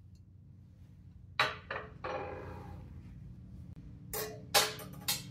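A ceramic plate set down on a marble countertop with a clink that rings briefly, then a fork and knife laid down beside it in a quick run of sharp metal clicks.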